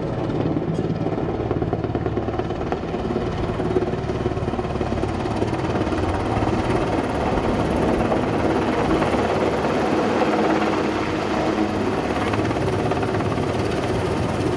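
Super Puma twin-turbine military helicopter flying low overhead: steady heavy rotor and turbine noise that swells a little midway.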